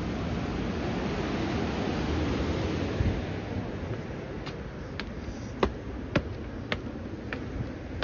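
Wind buffeting the microphone, easing after about three seconds; then a run of sharp clicks, about two a second.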